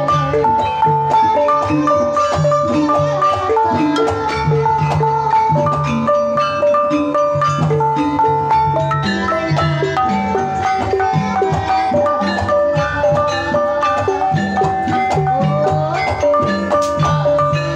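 Javanese gamelan playing a Banyumasan tayub piece (gending): bonang kettle gongs struck close by with padded sticks, ringing over other bronze instruments in a steady, even rhythm.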